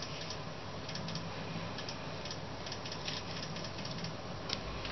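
Faint handling sounds of face powder being applied by hand, with a few light ticks and rubs from the compact and fingers on the skin, over a steady low hiss.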